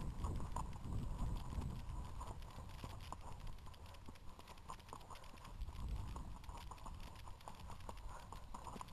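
Hoofbeats of a Standardbred horse moving along a grass and dirt trail, a run of soft clip-clops. A low rumble lies under them, strongest at the start and again about six seconds in.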